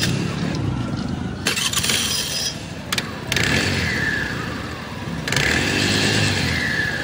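Scooty Pep scooter engine and its exposed belt drive spun up in short bursts, about four times, each burst about a second long; after the last one a whine falls in pitch as the drive winds down.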